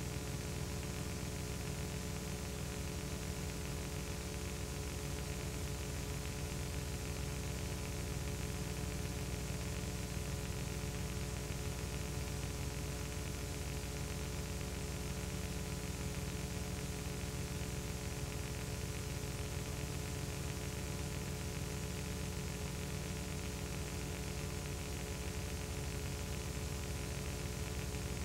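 Steady electrical hum with several constant tones under an even hiss, unchanging throughout: the noise floor of a soundless film transfer, with no sound from the pictured scene.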